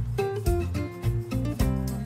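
Background music led by plucked guitar, with a steady rhythm of repeated notes over a bass line.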